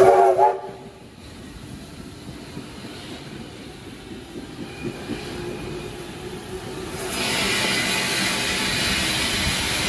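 Double-deck electric suburban train moving off past the platform, with a brief rising whine right at the start and a quieter steady rumble after it. About seven seconds in, as the train clears, a steady hiss of steam from Garratt steam locomotive 6029 takes over.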